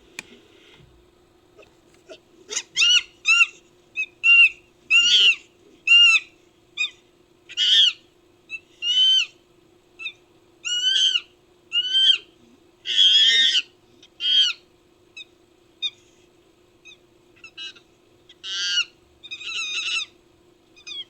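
Designed ape-creature sound effect built from chimpanzee calls: a long run of short, high-pitched calls, each rising and falling in pitch, some coming in quick pairs, over a faint steady hum.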